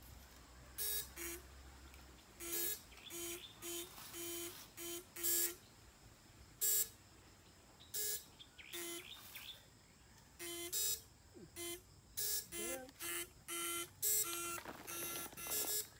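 Battery-powered backpack electrofishing device buzzing in short, irregular bursts, about twenty in all. Each burst is one steady-pitched electric buzz that starts and stops abruptly as current is switched through the probes in the stream water.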